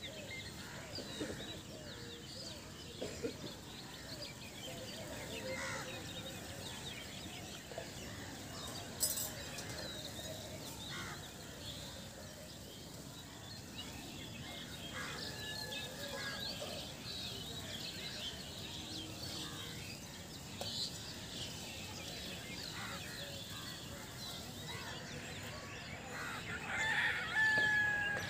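Rural outdoor ambience of small birds chirping throughout, with a rooster crowing near the end.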